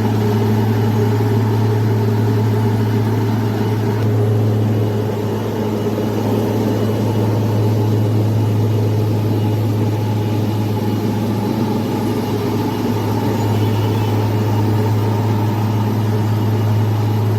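Heavy engine of a road-ploughing machine running with a steady low drone, its pitch and level unchanging throughout.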